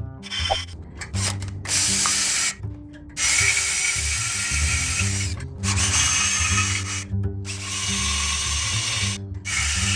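Power drill boring into steel tab welds, running in several long bursts that cut off abruptly between them, over background music with a steady bass line.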